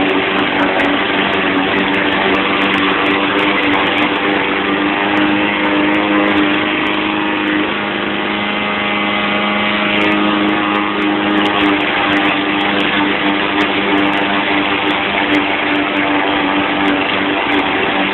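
YardMan push lawn mower's 159cc PowerMore single-cylinder gas engine running steadily while mowing, dipping slightly in level for a moment about eight seconds in.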